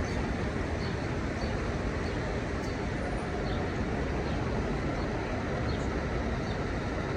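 Steady low rumble of vehicle engines and street traffic, with faint short high chirps now and then.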